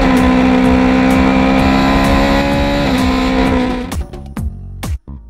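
Intro music: a held, buzzing chord over a steady kick drum, which breaks off about four seconds in to a sparse, punchy electronic beat.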